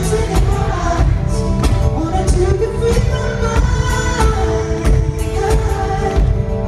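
Live acoustic pop performance: a male voice singing long held notes over a strummed acoustic guitar and a steady percussive beat, heard through a concert hall's amplification.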